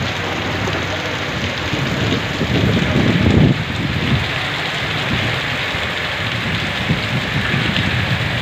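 Heavy monsoon downpour: steady pouring rain, with a louder, deeper surge about three seconds in.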